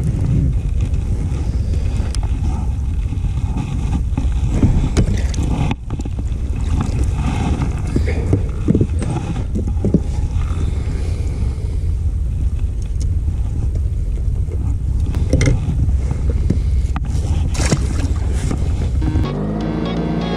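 Steady low rumble with scattered clicks and knocks of handling as a fish is reeled in on a multiplier reel and unhooked on an inflatable boat. Background music comes in about a second before the end.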